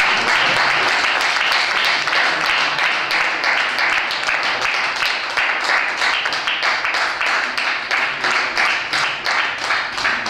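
A small group of people applauding. The clapping thins out in the second half, with single claps standing out.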